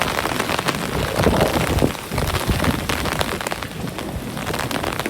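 Hailstones pelting down, a dense, continuous patter of many small impacts. A low rumble swells under it from about a second in.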